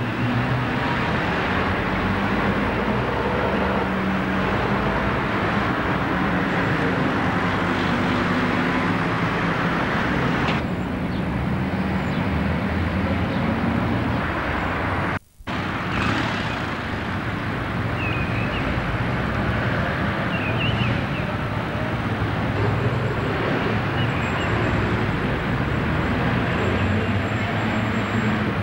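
Urban road traffic with buses and cars running, a steady wash of engine rumble and tyre noise. The sound cuts out for a moment about halfway through, then the traffic resumes with a few short high chirps.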